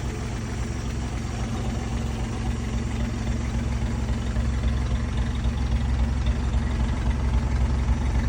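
1961 Chevrolet Apache 60 truck's engine idling steadily, running smoothly after being brought back to life.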